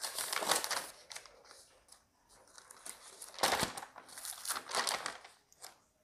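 Several bursts of rustling and crinkling with quiet gaps between, the loudest a sharp one about three and a half seconds in.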